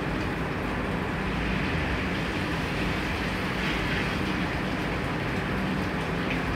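Banana turon (lumpia wrappers around banana) frying in hot oil in a frying pan, a steady sizzle over a constant low hum.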